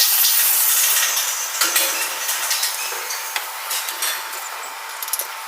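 A harsh, high rasping hiss fades out about a second in, giving way to scattered metal clinks and taps, typical of hand work on steel parts.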